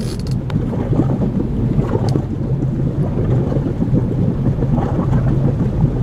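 Wind buffeting the microphone on an open boat, a loud, uneven low rumble, over the steady low hum of the boat's motor.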